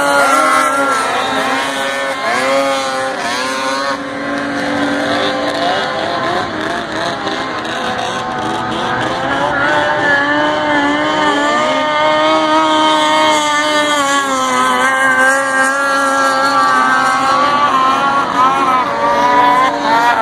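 Snowmobile engines running at high revs as the sleds race across water, their pitch rising and falling with the throttle, at times several engines overlapping.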